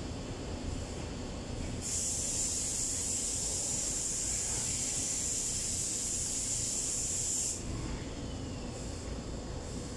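A steady, high hiss that starts about two seconds in, holds for about six seconds and cuts off suddenly.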